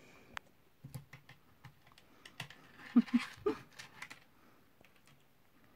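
Scattered light clicks and taps of a cat pawing at a plastic activity toy, with a few short vocal sounds about three seconds in.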